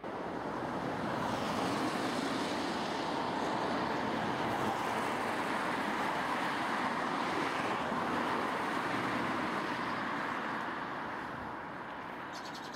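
Steady road traffic noise, an even hiss of tyres and engines that eases off slightly near the end.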